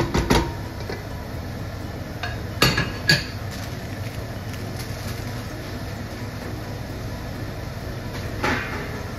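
A wooden spoon knocking against a stainless steel cooking pot, a few sharp knocks near the start and two more about three seconds in, over a steady low rumble.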